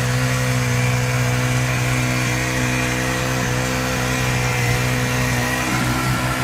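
Small petrol engine of a portable capstan rope winch running steadily at constant speed while it winds in the rope, hauling a loaded sled.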